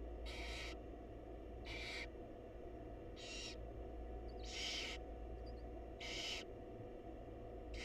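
Barn owl chicks giving their hissing, snore-like begging calls in a nest box: six breathy hisses, each about half a second long, repeated roughly every one and a half seconds over a steady low hum.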